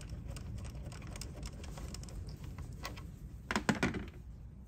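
Ratchet wrench clicking in fast runs while an 8mm bolt is backed out, with a few louder metallic clinks about three and a half seconds in.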